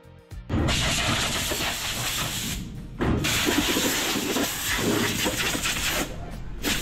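Compressed-air gun of a shoe-cleaning station blowing dirt off a golf shoe: a loud hiss in two long blasts, with a short break about two and a half seconds in.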